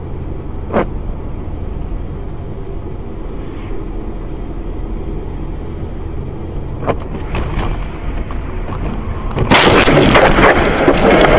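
Steady low rumble of a car on the road, with a couple of small clicks. About nine and a half seconds in, a sudden loud, rough crashing noise starts and runs on to the end, as of a collision.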